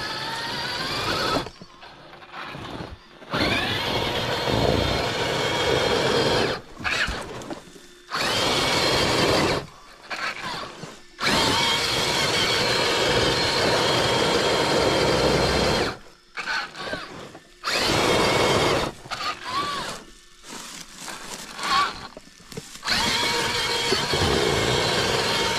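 Axial SCX6 Honcho RC crawler's electric motor and geared drivetrain whining under throttle in repeated bursts, stopping and starting about eight times, the pitch rising and falling as the throttle is worked.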